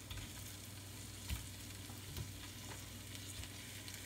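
Melted butter sizzling faintly in a stainless steel pan as pieces of corn on the cob are set into it by hand, with two soft knocks of cobs against the pan.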